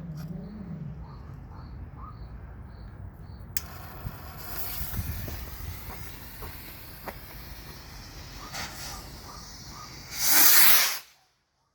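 Firework rocket launching with a sudden hiss about three and a half seconds in and hissing on through its flight, then a loud burst of noise lasting about a second near the end before the sound cuts off.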